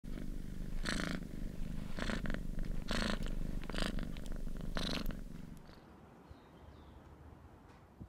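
Domestic cat purring close up: a steady low rumble that swells about once a second with each breath, then fades out about two-thirds of the way through.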